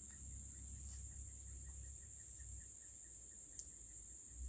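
Steady high-pitched chorus of insects, likely crickets, over a low rumble, with one faint tick about three and a half seconds in.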